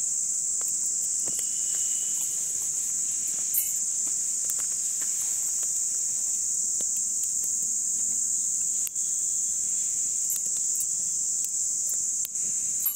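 Steady high-pitched buzzing chorus of insects such as crickets or cicadas, with scattered faint clicks and snaps from the crackling wood fire and the sticks being pushed into it.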